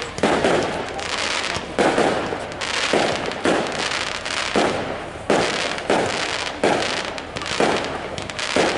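Aerial fireworks bursting in a rapid sequence, about ten sharp bangs roughly a second apart, with a steady fizzing crackle filling the gaps between them.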